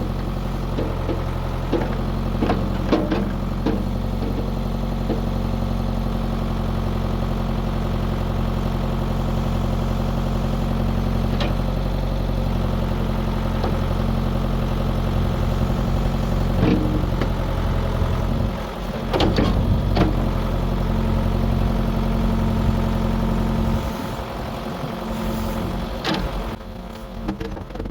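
Diesel backhoe engine running steadily while digging, with intermittent clanks and knocks from the bucket and arm, several close together past the middle. Near the end the engine's low note drops away.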